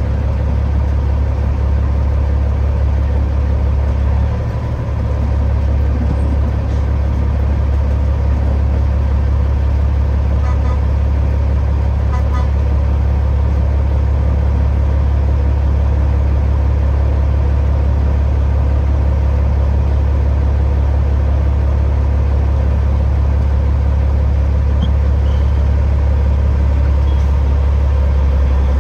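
Diesel engine of a Peterbilt 379 semi truck running steadily, a deep, even low drone that dips briefly about four seconds in.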